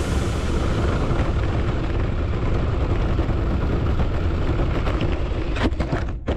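Onboard rumble of a 1:10 scale RC car driving fast over rough, gravelly pavement, with tyre and chassis vibration picked up by its mounted camera. A few sharp knocks come in the last second as the car lurches and tips.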